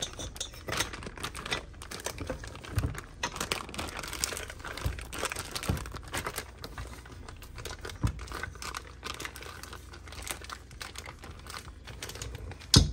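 Piping bag crinkling and rustling as churro dough is spooned into it, with scattered light clicks and taps and one sharper knock near the end.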